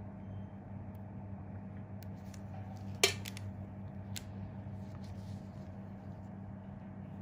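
A low steady hum with one sharp click about three seconds in and a few fainter ticks and taps around it.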